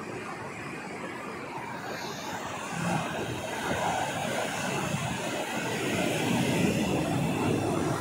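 Sea waves breaking on a sandy beach: a steady rushing surf that swells about three seconds in and is loudest near the end.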